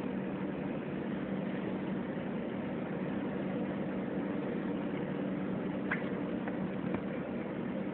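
A vehicle engine idling steadily, with two short clicks about six and seven seconds in.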